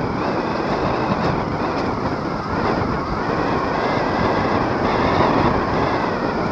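Wind and water rushing past a Nacra 17 foiling catamaran sailing at about 11 to 13 knots, heard on a camera mounted on the boat: a steady, loud rush of wind on the microphone mixed with water streaming off the hulls and foils, with a faint wavering whine above it.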